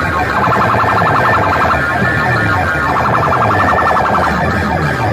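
Very loud DJ sound-box music blasting from stacked loudspeaker towers: a siren-like electronic wail with rapid pulsing, over bass sweeps that fall in pitch again and again.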